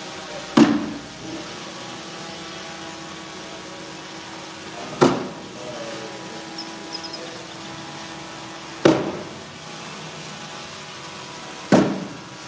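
Cornhole bags landing on a wooden cornhole board: four thuds a few seconds apart, each ringing briefly through the board, over a faint steady hum.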